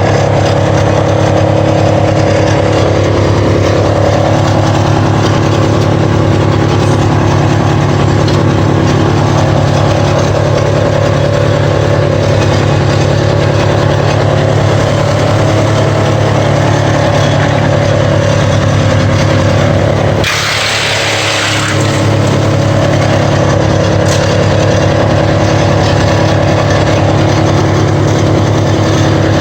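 Warmed-up Vermeer BC1000XL brush chipper running steadily and loud at working speed. About 20 seconds in there is a short hissing rush of a second or two, while the engine note briefly drops.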